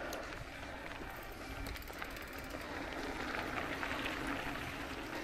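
Mountain bike rolling up a dirt trail, tyres crunching on gravel with a few small rattles and ticks. A steady rumble of wind sits on the microphone.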